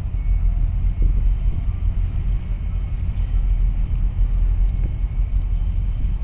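A steady low rumble with wind buffeting the microphone, and little higher-pitched sound over it.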